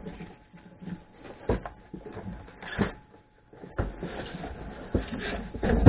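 Box and packaging being handled: rustling with about five scattered knocks and thumps, the loudest near the end.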